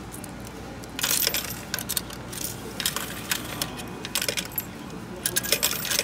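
Coins clinking and rattling as they are fed into a semi-self checkout's cash payment machine. A run of clatter starts about a second in, and another comes near the end.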